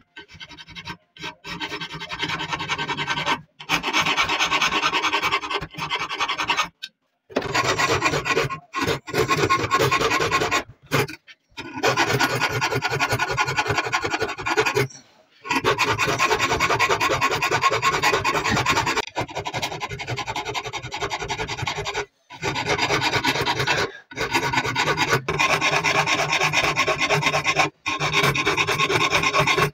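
Steel kunai blade being sharpened by abrasion: a rough, continuous rasping of metal against an abrasive. It comes in long stretches broken by several abrupt cuts to silence.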